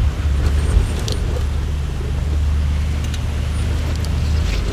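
Range Rover Sport's engine running with a steady low drone, with a few light clicks scattered over it.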